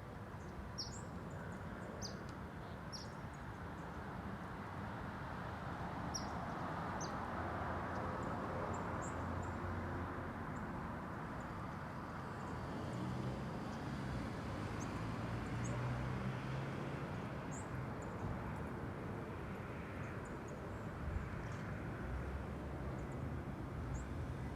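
A small bird's short, high chirps, several close together in the first few seconds and scattered after, over a steady low background rumble.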